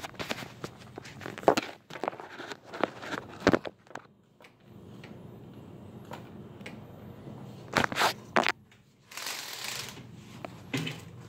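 Handling noise of a handheld phone being moved and gripped: scattered knocks and clicks with rustling, and a longer burst of rustling about nine seconds in.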